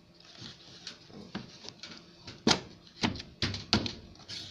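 Plastic detergent drawer of an Ariston washing machine being slid back into its housing: a series of clicks and knocks, the loudest about two and a half seconds in.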